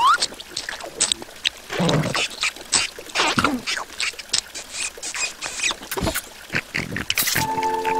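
Animated larva characters' wordless cartoon vocal sounds, mixed with short clicky comic sound effects. A held chord of steady electronic tones comes in near the end.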